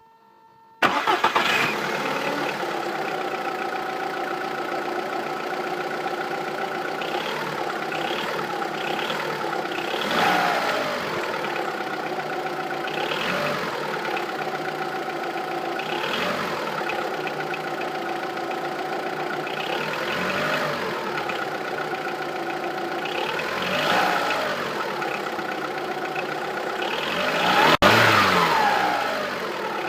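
Seat Ibiza 6L's 1.4 16V 75 PS four-cylinder petrol engine starting about a second in, then idling with several short revs, the last one the loudest. The engine has a clacking, clattering noise that VW puts down to the timing belt, a tensioner pulley or similar.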